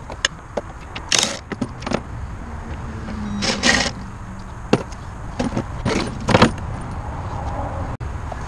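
Cordless drill with a socket extension run in short bursts on the bolts that hold a pool pump motor to the pump body, about seven brief bursts with metal clinking between them; one of the bolts is frozen and will not break loose.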